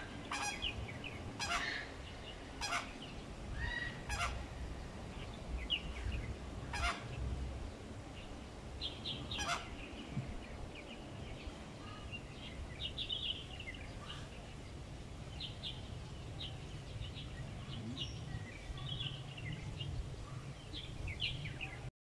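Flamingos honking: short calls repeated irregularly throughout. The loudest few are sharp and come in the first ten seconds, followed by a run of quicker, fainter calls.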